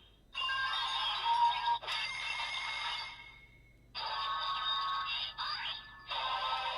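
A DX Ultraman Decker toy plays the electronic sound effects and music for an Ultraman X Ultra Dimension Card through its small, tinny speaker. The sound comes in several short bursts with brief silences between them, and one sound effect sweeps upward about two-thirds of the way through.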